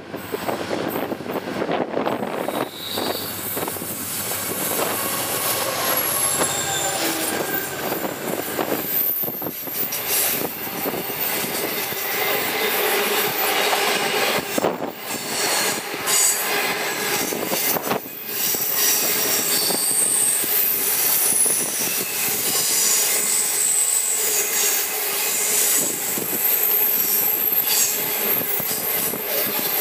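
The Indian Pacific passenger train's stainless-steel carriages roll past on a curve, their wheels squealing in high, wavering tones from flange contact with the curved rail. The clack of the wheels over the rails runs underneath.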